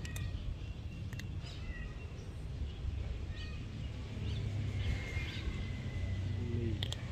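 Outdoor background noise with a steady low rumble, scattered short bird chirps and a longer thin whistle past the middle, and a few sharp clicks, the clearest about a second in and near the end.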